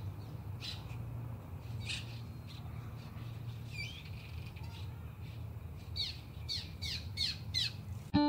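Birds chirping in short, downward-sliding chirps over a steady low hum, the chirps coming quicker and louder near the end.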